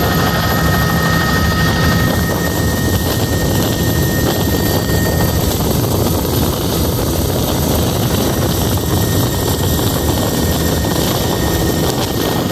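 Helicopter in flight heard from inside its cabin: the rotor and engine make a steady, loud drone with a thin high whine over it.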